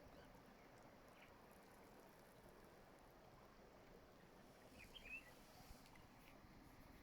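Faint, steady sound of slowly flowing water, with a short bird chirp about five seconds in.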